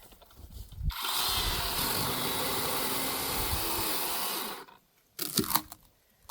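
A power saw cutting through a log, running steadily for about three and a half seconds before stopping abruptly, followed by a few short knocks.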